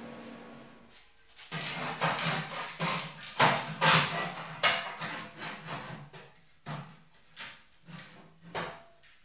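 Sheet steel knocking and clanking as a bent steel strip is fitted against a welded steel motorcycle gas tank shell: an irregular run of sharp metallic knocks, with a hollow low resonance from the tank, busiest in the middle and thinning to a few single knocks near the end.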